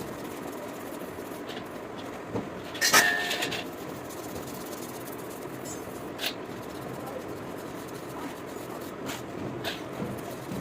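Metal parts being handled on a workbench: a ringing metallic clatter about three seconds in, then a few lighter clicks and taps over a steady background noise.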